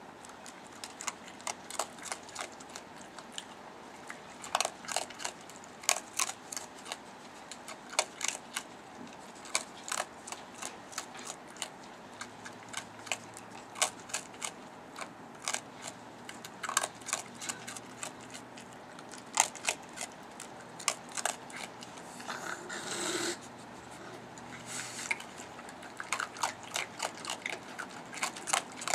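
Raccoon crunching dry kibble, with irregular sharp crunches and clicks of chewing throughout. A brief rasping noise comes about three-quarters of the way through.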